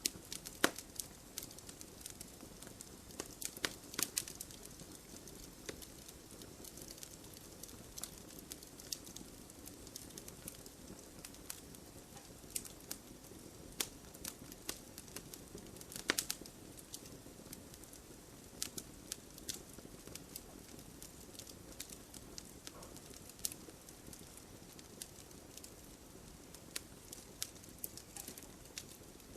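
Firewood burning: irregular sharp crackles and pops of the logs over a soft, steady rustle of the flames, with the loudest pops near the start and about sixteen seconds in.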